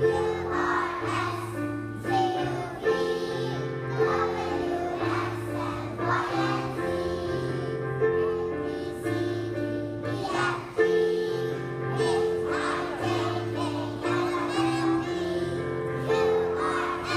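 A large choir of kindergarten children singing together over an instrumental accompaniment, its bass notes changing about once a second.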